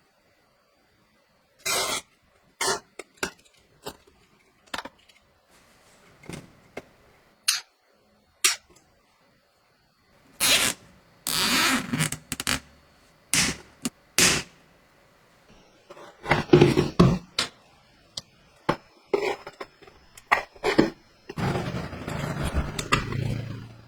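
Scattered knocks, clicks and short scrapes of machine parts and tools being handled during assembly, irregular with pauses between them, busier in the middle and with a longer rough scraping stretch near the end.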